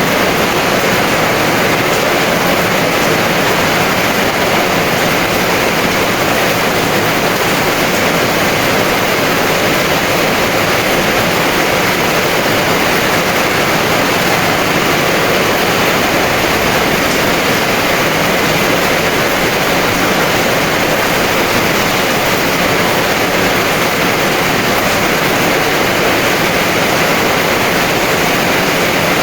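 Heavy rain falling steadily, an even dense hiss with no breaks or distinct drops.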